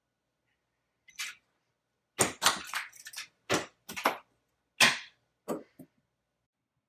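A quick run of sharp knocks and cracks, about eight hits in three and a half seconds, with a fainter one about a second in.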